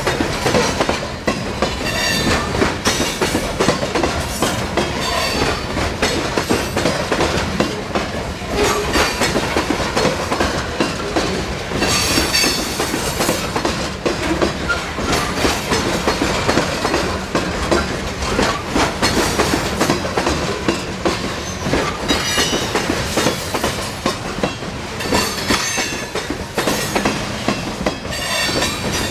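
Steel wheels of loaded-train coal cars rolling past close by: a steady rumble with rapid clickety-clack as the wheels cross rail joints, and brief high wheel squeals now and then.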